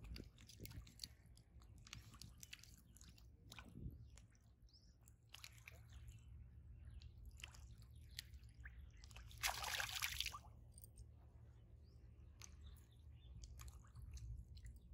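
Faint crackling and rustling close by, over a low steady rumble, with one brief louder rush of noise about nine and a half seconds in.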